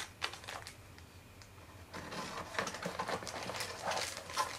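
Plastic packaging crinkling and cardboard rustling as hands rummage inside a box. It starts with a few light clicks, then from about two seconds in comes a denser run of crinkles and clicks.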